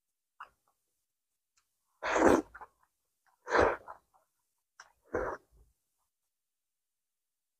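Three loud slurps, about a second and a half apart, as strips of steamed rice roll are sucked into the mouth, with a few faint ticks between them.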